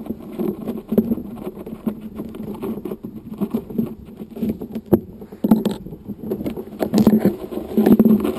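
Close handling noise from hands working a kite bar's lines and rubber-sleeved safety release on a tabletop: scattered small clicks, taps and rustles, at no steady rhythm.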